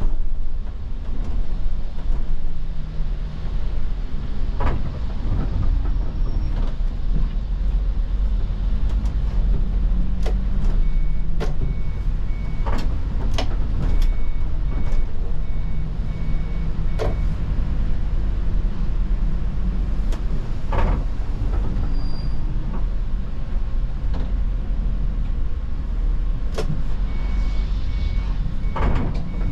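Iveco Crossway city bus running in traffic, heard from the front of the bus: a steady low engine and road rumble with tyres on wet road and scattered clicks and knocks. A repeating high beep sounds for several seconds around the middle and again near the end.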